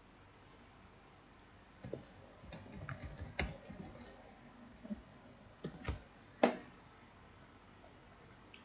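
Typing on a computer keyboard: a quick run of keystrokes about two seconds in, then a few separate, louder clicks around six seconds in, the last one the loudest.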